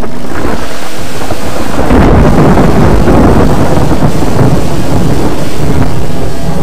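Thunderstorm sound effect: loud, continuous thunder with rain noise underneath, accompanying a lightning-bolt logo.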